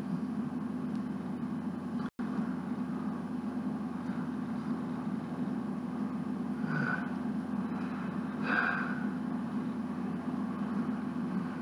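Steady low background hum, with the sound cutting out for an instant about two seconds in. Two short, faint vocal sounds come from the man later on.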